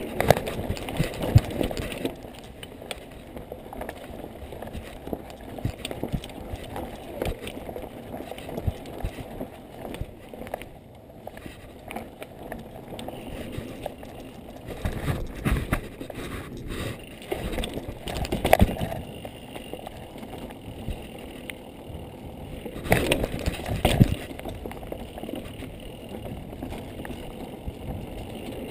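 Mountain bike ridden fast down a dirt trail: tyres rumbling on the dirt, with frequent knocks and rattles from the bike over bumps. The rattling is heaviest in bursts near the start, about halfway through and again about two-thirds of the way in.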